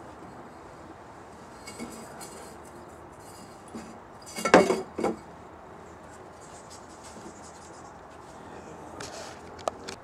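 Steel oil filter canister being handled on a wooden block: scattered light metallic clinks, with two loud knocks close together about halfway through.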